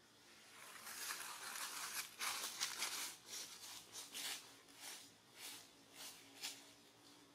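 Dry rustling and crinkling of leaves and twigs as a monkey shifts about on a branch. It swells into a dense rush, then breaks into short separate rustles about twice a second that fade near the end.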